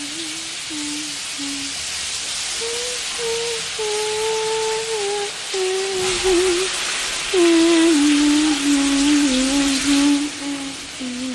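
A person humming a slow melody of long held notes over the steady hiss of a running shower; the water gets fuller and lower about halfway through.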